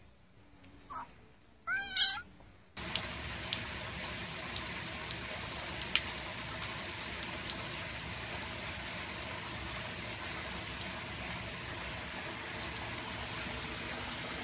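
A domestic cat meows: a faint short call, then a louder meow about two seconds in that rises and falls in pitch. After that comes a steady background hiss with scattered faint clicks.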